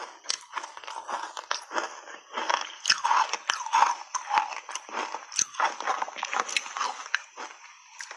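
Soft ice chunks coated in matcha powder being bitten and chewed close to a clip-on microphone: a dense run of crisp crunches and cracks in quick succession.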